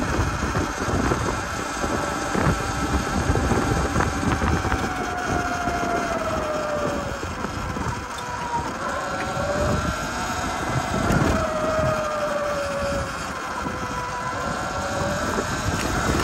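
Sur-Ron electric dirt bike's motor whining as it rides, the whine falling and rising in pitch with speed, over wind buffeting the microphone.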